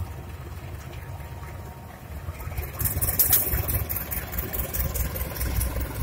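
Diesel engine of a KAI CC203 (GE-built) diesel-electric locomotive running as it rolls slowly past, a steady low rumble that grows louder about two seconds in, with sharp clicks over the top.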